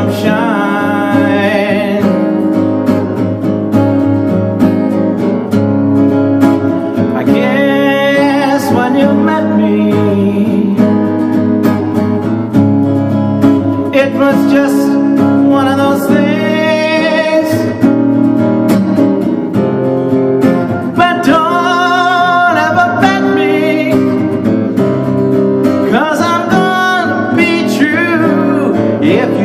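A man singing to his own strummed steel-string acoustic guitar in an up-tempo acoustic blues, the vocal coming in phrases over steady guitar chords.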